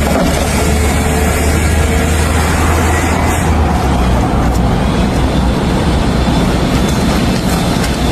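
Loud, steady engine noise, with a low hum that drops away about three and a half seconds in.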